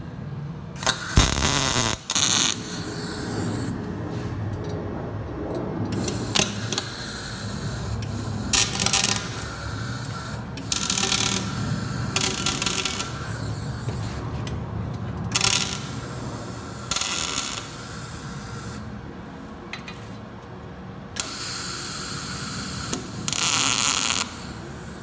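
MIG welding gun tack-welding steel flanges onto exhaust pipes, in a series of separate bursts each lasting about half a second to a second and a half, over a steady low workshop hum.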